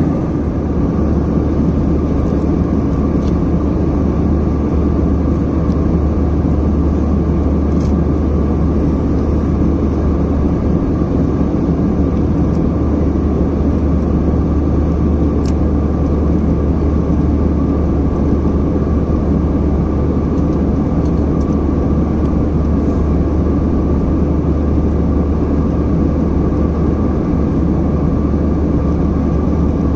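Steady cabin noise of a jet airliner in flight: engine and airflow rush with a strong low hum, heard from a window seat inside the cabin.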